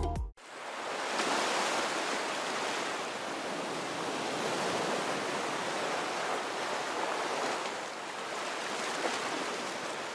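Music cuts off, then a steady rushing noise of waves fades in over about a second and holds with gentle swells.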